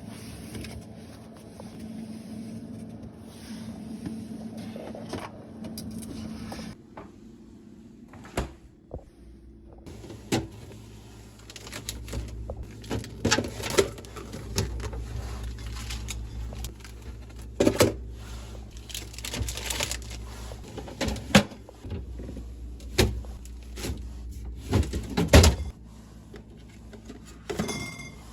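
Kitchen clatter of groceries being put away: irregular knocks, clicks and thuds as items are handled and set down, over a steady low hum.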